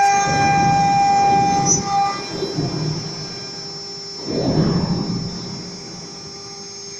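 CNC router spindle running with a steady high whine, while the bit cutting sheet material adds a rough rushing noise that swells twice, early and again about four seconds in.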